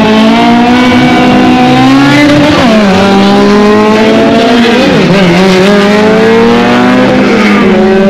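Race car engine running at full throttle, its pitch climbing steadily and dropping sharply at each upshift, twice, as it accelerates down the track.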